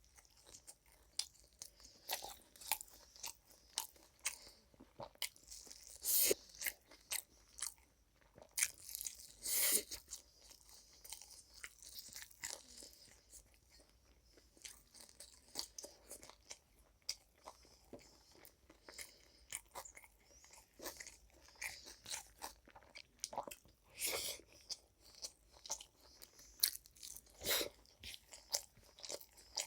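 A person chewing and crunching food close to the microphone: a steady run of irregular small crunches and mouth clicks, with a handful of louder bites spread through.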